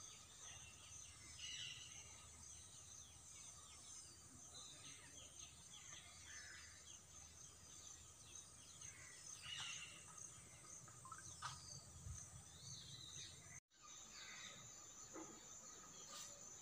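Faint outdoor birdsong: scattered chirps and short downward-sweeping calls from several birds, over a steady high insect drone. The sound cuts out for an instant about three-quarters of the way through.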